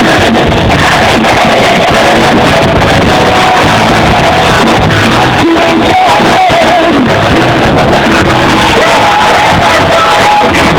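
Loud, steady music with a singing voice.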